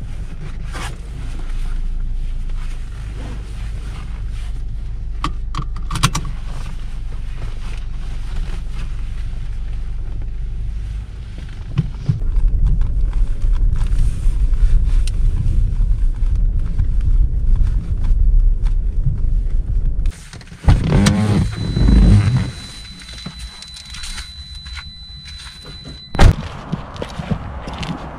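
Steady low rumble of a Toyota car's engine and road noise heard inside the cabin while driving, growing louder about twelve seconds in. Near the end the rumble stops and a single sharp knock stands out.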